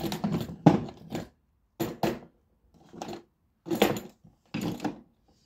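Irregular metallic clanks and clatters, about seven in all, the loudest near the start: hand tools being rummaged through and moved about on a cluttered workbench.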